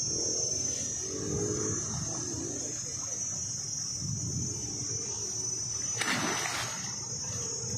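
A big hooked fish thrashing at the water's surface as it is landed by hand, with one sharp splash near the end. A steady high insect buzz, like crickets, runs underneath.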